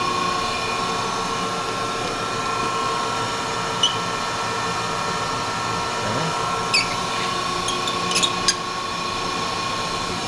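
Grisetti cylindrical grinder running with a steady whine made of several held tones. A few short sharp clicks come in the second half.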